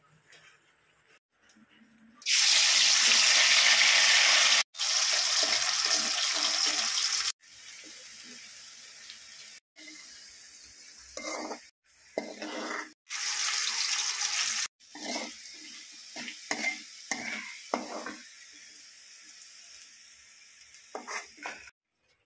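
Spice-coated strips frying in hot oil in a metal wok: a loud sizzle starts about two seconds in, then settles to a quieter steady sizzle. Over the quieter part a metal spoon scrapes and knocks against the wok several times as the strips are stirred.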